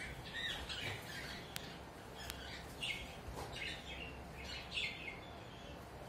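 Rosy-faced lovebirds chirping: short, high-pitched calls coming in little bunches several times, with brief gaps between them.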